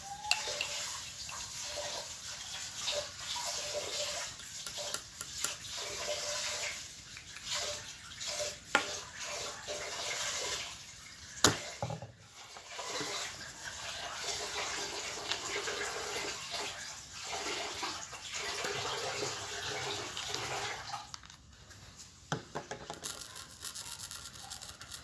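Slime mixture of glue and colouring being stirred in a container: repeated wet scraping and squishing strokes, with a few sharp taps along the way.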